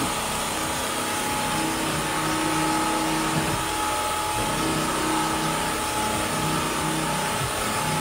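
Bissell CrossWave Cordless Max wet-dry vacuum running: suction motor and spinning brush roll give a steady whine over a hiss while it picks up spilled flour from a wet hardwood floor.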